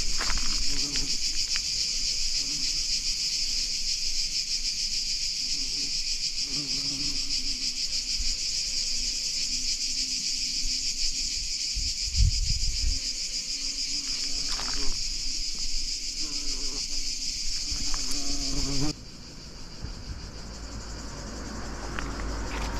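Cicadas singing: a loud, steady, shrill buzz that stops suddenly about 19 seconds in.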